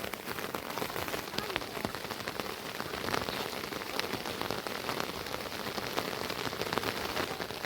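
Steady rain falling, with many individual drops striking a hard surface close by.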